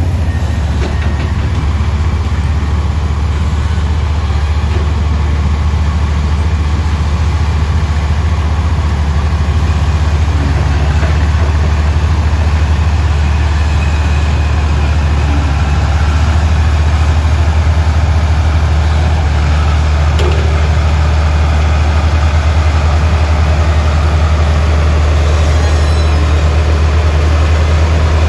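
The diesel engine of a Komatsu PC200 excavator running steadily as a constant low drone while it works.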